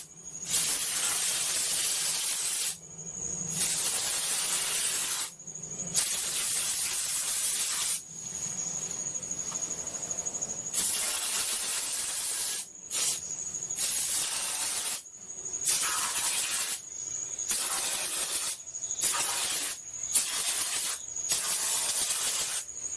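Spray foam insulation gun hissing in about ten separate bursts of one to three seconds each as the trigger is pressed and released, spraying polyurethane foam.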